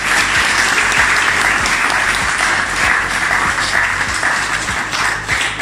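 A small group of people clapping and applauding.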